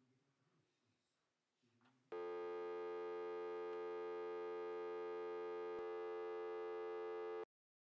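After near silence, a steady electronic buzzing tone starts about two seconds in and holds at one pitch. It has a single click near the six-second mark and cuts off suddenly about half a second before the end.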